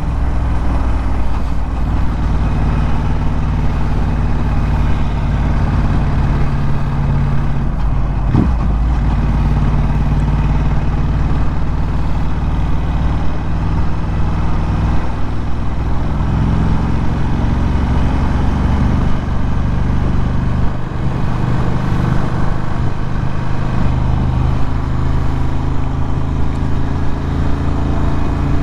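Ducati Scrambler 1100's air-cooled L-twin running through a Termignoni exhaust while the bike is ridden at a steady pace. There is a quick blip of revs about eight seconds in, and the engine note shifts and dips in the middle stretch before settling back to a steady run.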